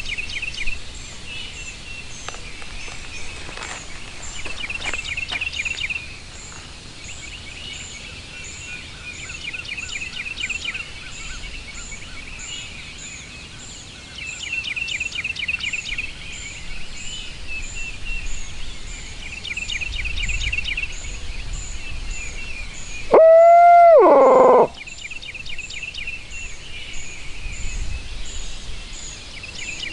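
Songbirds singing a dawn chorus: a rapid trilled song repeats every few seconds over high, thin notes. About 23 seconds in comes one loud, close owl-like hoot, about a second and a half long, that slides down in pitch at its end.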